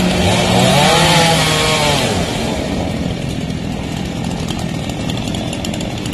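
Chainsaw engine revving up and down twice, then running on more quietly from about two seconds in, as the fallen tree is cut up.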